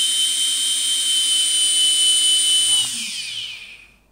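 Brushless motors of a quadcopter with no propellers whining steadily at full throttle on a 2S battery, then spinning down near the end with a falling whine until they stop.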